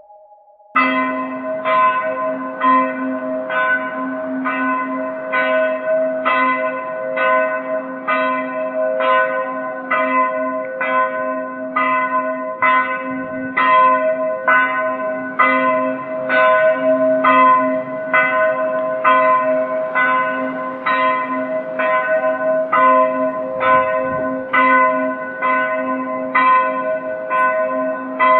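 Church bell ringing in quick, even strokes, about three every two seconds, starting suddenly about a second in; its hum rings on between strokes.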